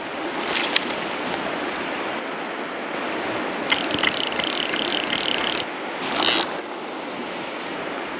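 Fishing reel's ratchet drag buzzing rapidly as a hooked fish runs and pulls line off. One burst lasts about two seconds, about four seconds in, and a shorter one follows a second later. Under it runs the steady rush of river water.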